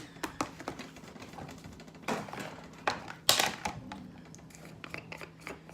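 Small clicks and taps of makeup compacts, palettes and brushes being handled, with a sharper knock about three seconds in, over a faint steady hum.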